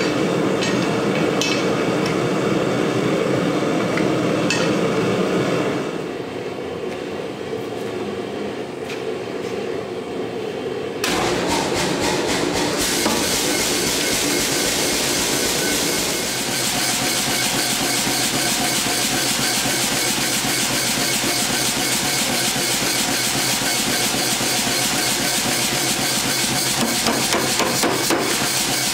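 A gas forge's burners running with a steady roar, then about eleven seconds in a power hammer starts up and strikes rapidly and continuously on a glowing bar of 3/4-inch square steel held under a hand-held top tool, forging a tong blank.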